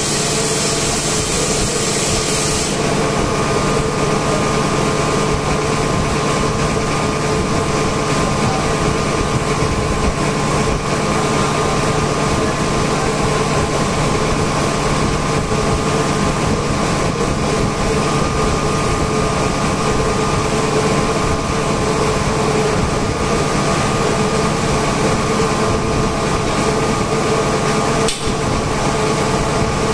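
Industrial machinery running steadily: a constant hum with several steady tones. A high hiss sounds for the first couple of seconds, and there is a single knock near the end.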